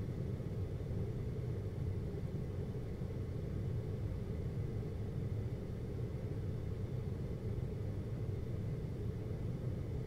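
GoldStar window air conditioner running: a steady low hum and fan rumble that never changes, with a faint thin high tone above it.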